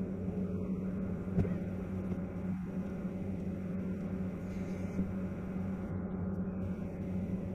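Steady in-flight drone inside a KC-135R tanker's boom pod: engine hum and airflow rush with a constant low tone. There is one brief click about a second and a half in.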